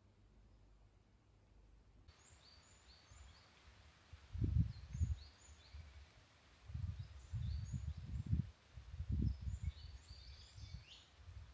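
Small birds chirping in short, high, scattered notes over a steady outdoor hiss, starting about two seconds in. From about four seconds in, several loud deep rumbles come and go.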